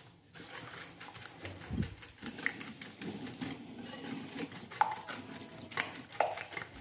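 A wire whisk beating raw eggs and sugar in a glass bowl: a fast, continuous run of light clicks and scrapes as the wires hit the glass. A few sharper clinks come in the second half.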